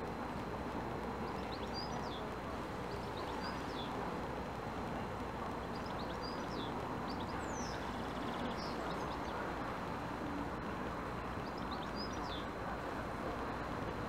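Steady outdoor background noise with a faint, steady high whine. Small birds chirp in short high bursts, about a second in, again midway, and near the end.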